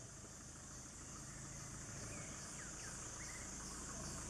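Faint outdoor ambience: a steady high insect drone, with a few short bird chirps between about two and four seconds in, over a low steady rumble.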